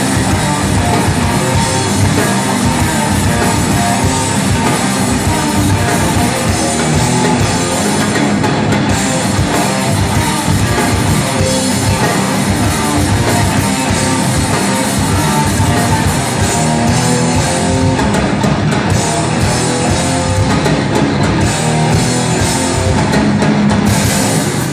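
A rock band playing live at full volume: electric guitars through stage amplifiers and a drum kit, one continuous loud stretch of the song, heard from within the crowd.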